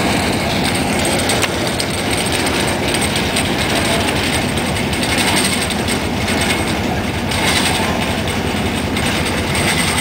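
EMD SW1 switcher locomotive's diesel engine idling steadily while the locomotive turns on a railway turntable, with low rumbling and irregular knocking from the turntable and rails.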